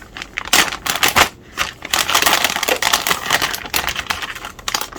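Packaging rustling and crackling as an expansion card is taken out of it, with many sharp clicks and a dense stretch of crinkling in the middle.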